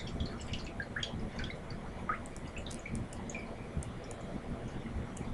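Water dripping off a freshly rinsed whole raw chicken into a basin of water below, in scattered small drops.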